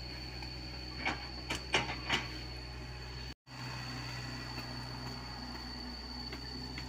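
Komatsu PC75UU mini excavator's diesel engine running steadily while it digs, with a few sharp knocks about a second in and a steady high whine over it. The sound drops out for an instant near the middle.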